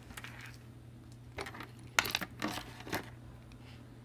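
A few small, sharp metallic clicks and clinks, about four in a second and a half, as small metal hand tools are handled and set down on the workbench.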